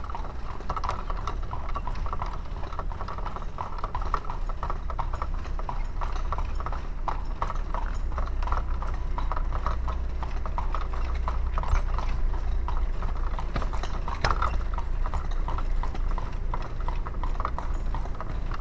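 A carriage horse's hooves clip-clopping on a paved street as it pulls a buggy, over a steady low rumble.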